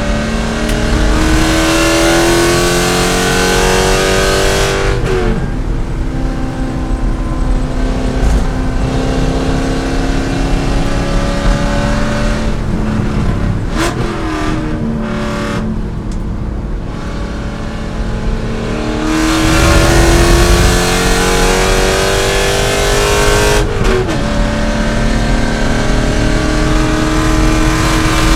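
C5 Corvette's V8 engine at full throttle on track, its pitch climbing through the gears, with upshifts about five seconds in and again near the end. About halfway through it eases off for a few seconds, with quick blips and clicks as for downshifting into a corner, then accelerates hard again.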